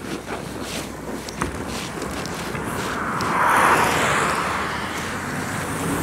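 Volgabus city bus running at a stop, growing louder close by, with a rushing hiss that peaks a little past halfway. Footsteps on packed snow in the first second or so.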